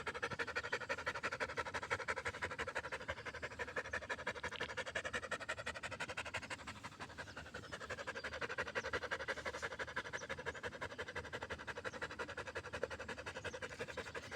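A dog panting fast and steadily, short quick breaths in an unbroken rhythm, as a dog does when tired or hot.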